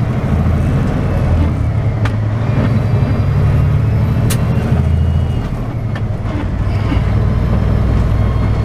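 Semi truck's diesel engine droning low and steady inside the cab while driving, with a couple of sharp clicks.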